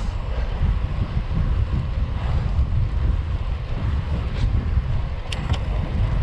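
Wind buffeting the microphone of a camera on a moving bicycle, a steady low rumble. Two short clicks come a little over five seconds in.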